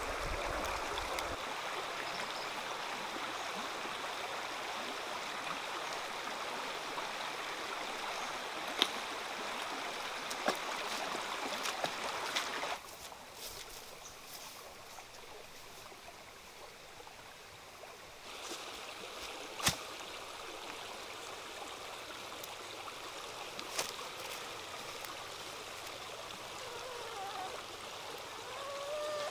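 Steady outdoor background noise with no clear pitch, dropping in level partway through and marked by a few sharp clicks. Near the end come a few short rising whimpers from puppies in a basket.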